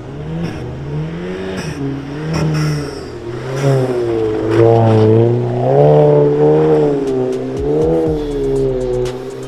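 Car engine revving hard while the car is drifted in the snow, its pitch repeatedly rising and falling, loudest in the middle.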